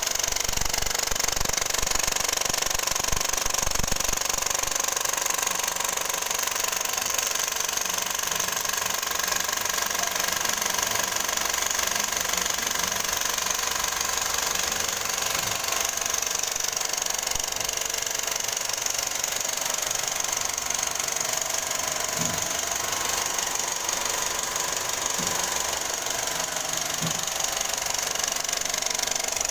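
Cinema film projector running with a steady mechanical noise while its film reels turn.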